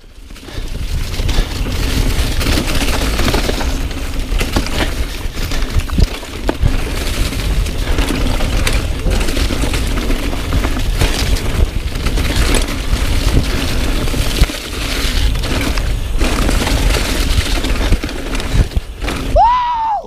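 Mountain bike descending fast over rocky, leaf-covered singletrack: continuous tyre roar and wind on the bike-mounted microphone, with constant clatter and rattling as the bike hits rocks and roots.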